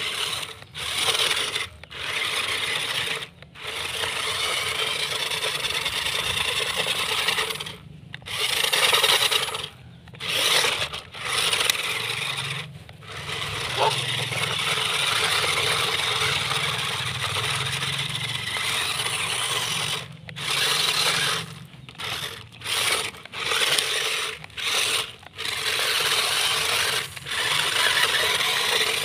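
Toy RC off-road cars' small electric motors and plastic gears whirring as their wheels spin over gravel and throw dirt, running in stop-start bursts with many short pauses.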